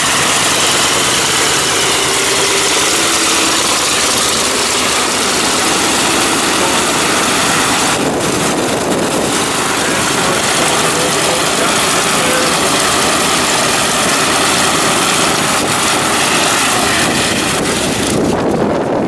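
F4U Corsair's Pratt & Whitney R-2800 Double Wasp radial engine running at low taxi power, steady and loud, with the propeller turning. Near the end the upper part of the sound falls away as the fighter taxis off.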